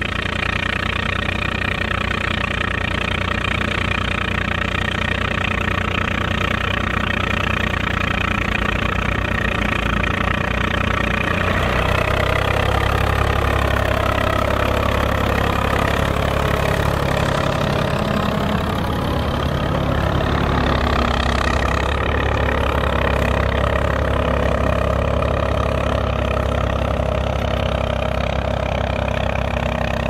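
Volvo BM 350 Boxer tractor's diesel engine running steadily under load while pulling a three-furrow plough through the soil. The sound grows fuller about twelve seconds in, and the tone sweeps down and back up around the middle as the tractor passes close by.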